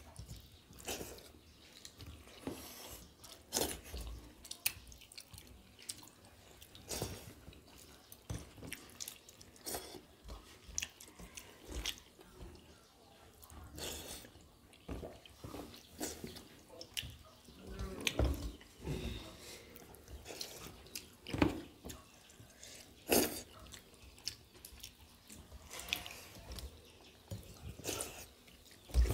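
Two people eating water-soaked rice by hand from steel plates: wet squelching and splashing of the rice in its water, chewing, lip smacks and slurps, as irregular short wet clicks. A louder slurp comes about halfway through as the plate is tipped to the mouth and the rice water drunk.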